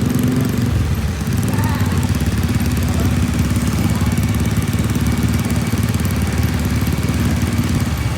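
Yamaha MT-15's single-cylinder engine running through an Akrapovic full-system exhaust at a steady speed while riding, with a brief dip about a second in.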